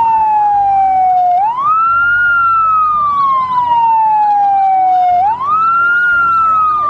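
Fire engine sirens. One siren wails, rising quickly and then falling slowly in a cycle of about four seconds, while a second siren warbles rapidly up and down underneath it.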